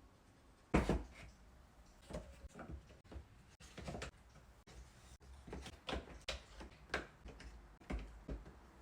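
Spring clamps and a wooden holder being handled and set in place: an irregular series of knocks and clacks, the loudest about a second in.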